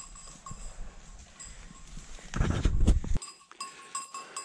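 Footsteps crunching through dry leaf litter and brushing through brambles and twigs, loudest about two to three seconds in. A small dog bell tinkles now and then.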